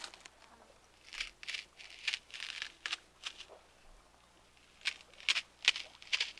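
A knife shaving a long strip of wood in short, irregular scraping strokes, several in quick runs with brief pauses between.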